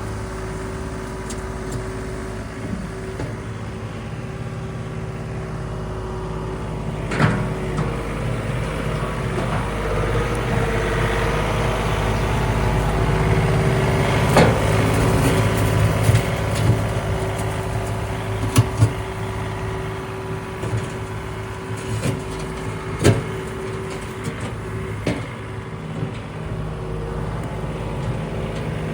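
John Deere 3039R compact diesel tractor running steadily while driving a Woodland Mills WG24 stump grinder into a stump, with irregular sharp knocks and cracks of the grinding from about a quarter of the way in, growing louder toward the middle.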